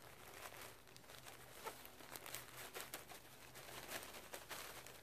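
Faint, irregular rustling and crinkling of a plastic mulch sheet and soil as gloved hands press and pat the soil around a tomato seedling set through it.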